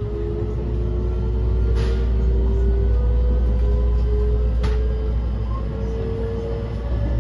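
Inside a JR West 223 series 2000 motor car, the Toshiba IGBT VVVF inverter and traction motors whining in a few steady tones that climb slowly in pitch as the train accelerates, over a low rumble of running. Two sharp clicks come about two and four and a half seconds in.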